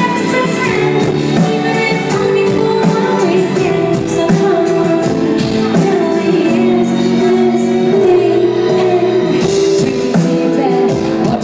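Live pop song: a woman singing into a microphone with her band, over a steady beat, heard from the crowd.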